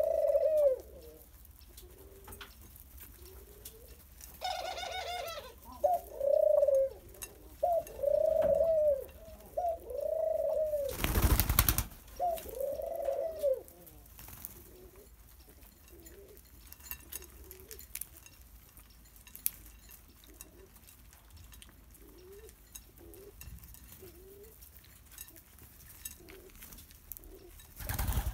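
Ringneck doves cooing: a run of loud rolling coos, one after another, through the first half, then fainter scattered coos. A brief rush of noise comes about halfway through, and wings flap just before the end.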